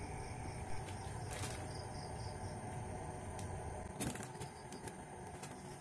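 Crickets chirping in quick pulsed trills over a steady low hum, with a couple of light clicks, one about a second and a half in and a sharper one about four seconds in.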